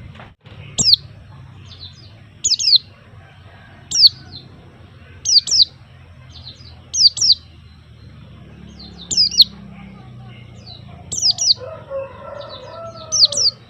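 A white-eye (pleci) calling: short, high chirps, each a quick two- or three-note falling sweep, repeated about every one and a half to two seconds.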